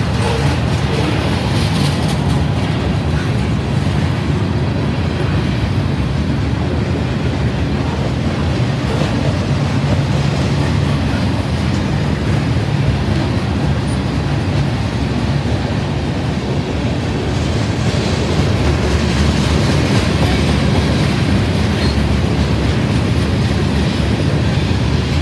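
Freight cars of a Union Pacific train, covered hoppers and tank cars, rolling past at close range: a steady, loud rumble of steel wheels on the rail.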